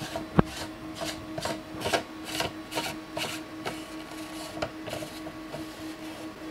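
Plastic lens barrel of a Chauvet Intimidator Spot LED 250 moving head being twisted by hand to unscrew it. Its threads scrape in short strokes about two a second, with a sharp click about half a second in.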